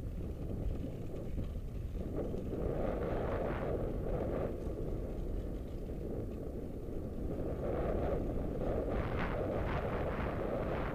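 Wind buffeting an action camera's microphone on a moving bicycle: a steady low rumble that swells in gusts a few times.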